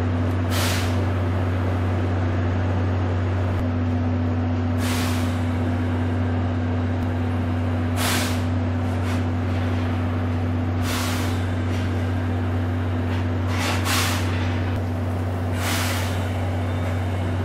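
A DE10 diesel-hydraulic locomotive idling with a steady low hum, with short hisses of compressed air every few seconds, one of them doubled near the end.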